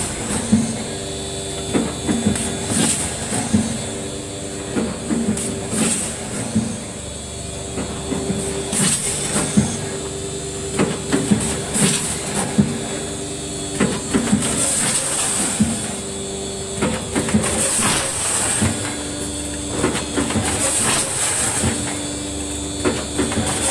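Rotary doypack pouch packing machine running on coffee beans: a steady mechanical clatter of clicks and knocks over a constant hum, with short bursts of air hiss from its pneumatic actuators every few seconds as each cycle indexes.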